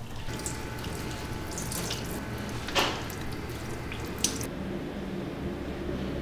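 Running water with drips and a couple of short splashes, as in washing at a sink; the high hiss of the flow stops about four and a half seconds in.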